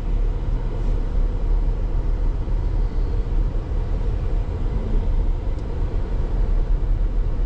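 Steady low rumble of a car heard from inside its cabin, engine and road noise without any distinct knocks or changes.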